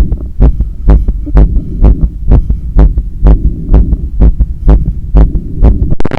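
Human heartbeat heard through a stethoscope on the chest, fast and forceful at about two beats a second: a heart racing after hard running and stair climbing. Each beat is a heavy low thump with a sharp edge.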